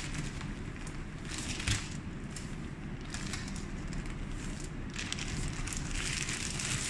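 Plastic bag of coins being handled at a vending machine's collection tray: crinkling plastic and shifting coins, with a single knock about a second and a half in and louder crinkling near the end.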